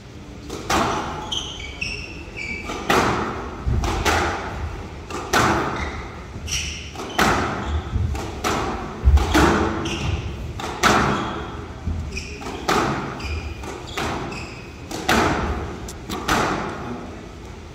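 Squash rally: a rubber squash ball struck by the rackets and slapping the front and side walls in a quick irregular beat, about one to two hits a second, each hit ringing briefly in the hall, with short squeaks of court shoes as the players lunge. The hits stop near the end as the rally ends.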